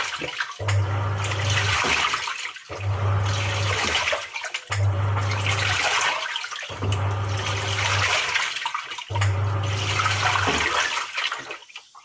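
Samsung 6.5 kg top-loader washing machine agitating: the motor hums in about five one-second strokes, roughly two seconds apart, each churning and splashing the water in the tub, then falls quiet near the end.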